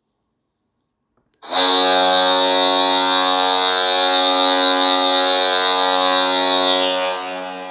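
Hockey goal horn recording from a goal horn app: one long, steady, loud blast that starts abruptly about a second and a half in, holds for about five and a half seconds, then dies away near the end.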